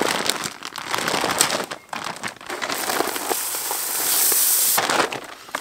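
A bag of shelled corn being handled and opened with crinkling and rustling. About three seconds in, whole corn kernels pour out of the bag onto the ground in a steady rushing stream that lasts about a second and a half and is the loudest sound.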